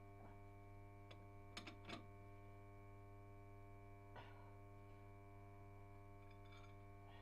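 Near silence: a faint, steady hum with a few soft clicks.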